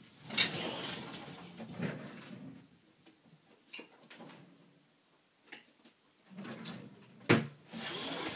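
Household handling noises: a stretch of rustling and rattling, a few separate soft clicks, and a sharp knock near the end, the loudest sound.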